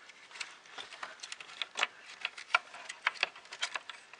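Irregular light clicks and taps of plastic 3D-printer parts and wiring connectors being handled and fitted, several a second, the sharpest about two and a half and three seconds in.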